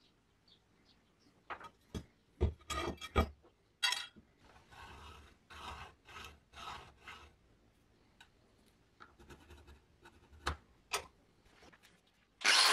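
A few sharp knocks and clicks of metal being handled, then a run of scratchy pencil strokes across a thin rusty steel sheet as it is marked out. Near the end an angle grinder starts up loudly and cuts into the sheet.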